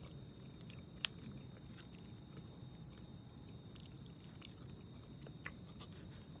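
Faint chewing of oily smoked sardines, with a few light clicks of a plastic fork against the sardine tin; the sharpest click comes about a second in.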